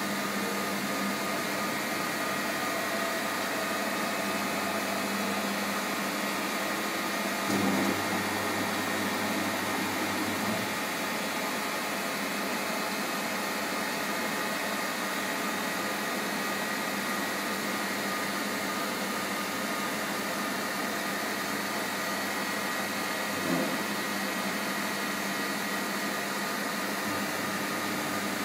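MAHO MH 700 C CNC milling machine running with a steady mechanical hum and whine, with two brief low knocks, about a third of the way in and again near the end.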